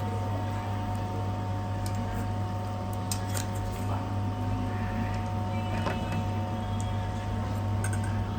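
A steady mechanical hum with a few steady higher tones above it, and a few faint clicks scattered through.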